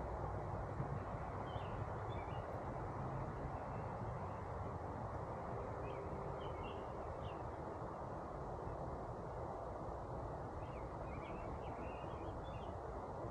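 A small bird chirping in short high phrases three times, near the start, in the middle and near the end, over steady outdoor background noise.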